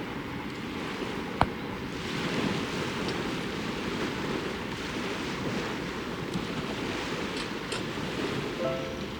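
Small waves washing steadily onto a lakeshore, with some wind. A single sharp click about a second and a half in.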